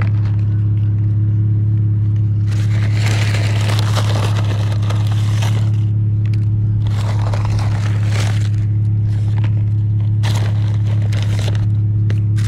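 A loud steady low hum throughout, with three bursts of rustling and crunching as takeout food is handled and loaded into the mesh bait basket of a wire cage trap.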